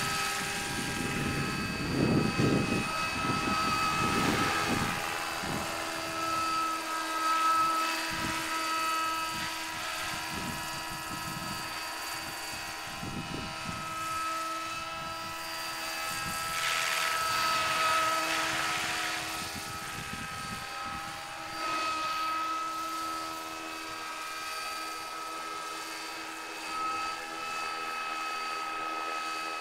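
Large scale radio-controlled Westland Lynx HMA Mk8 helicopter in flight: a steady high whine from its drive over the beat of the rotor blades. The blade beat is stronger in the first few seconds and again about 17 seconds in as the model passes closer.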